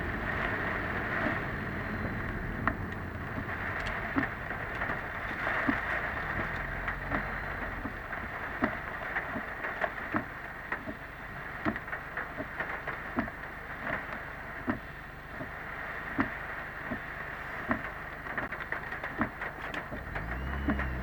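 A car driving through typhoon rain, heard from a dashcam inside the cabin: a steady hiss of rain and tyre spray, with sharp clicks repeating at a steady pace of more than one a second. Near the end a low engine note rises.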